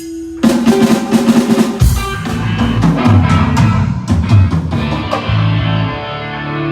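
Live rock band playing a short passage at a sound check: drum kit hits and fills over held bass notes, starting suddenly about half a second in and thinning out near the end.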